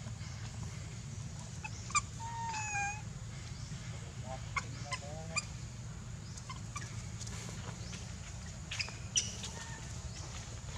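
Infant long-tailed macaque crying for milk: scattered squealing, wavering cries, a drawn-out one about two seconds in, a cluster around the middle and sharp squeaks near the end, over a steady low rumble.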